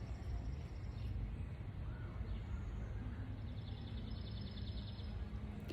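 Outdoor ambience: a steady low rumble with a few faint bird calls, and a faint high rapid trill in the second half.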